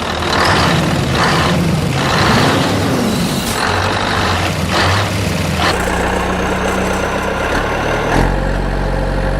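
Heavy truck engine running, with loud bursts of hiss and a rising and falling engine note in the first half, then a steady engine drone from about six seconds in.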